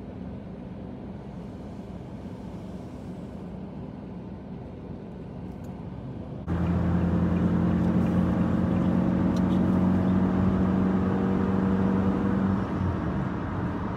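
Car cabin noise from driving: a steady low engine and road hum, which jumps suddenly louder about six and a half seconds in and holds steady while the car cruises on a highway.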